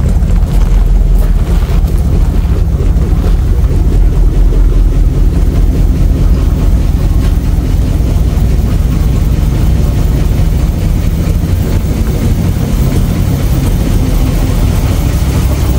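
1960 Ford Galaxie Starliner's engine running at a steady idle, just started once its starter was properly connected.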